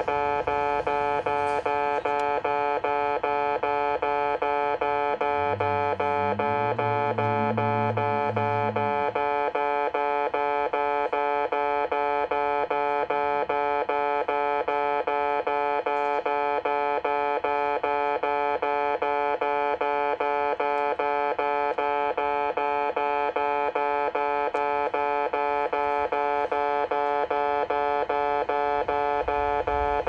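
Electronic railway level-crossing alarm ringing: a chime of several fixed tones repeating fast and evenly without pause, warning of an approaching train. A low hum swells briefly about six seconds in, and a low rumble begins near the end.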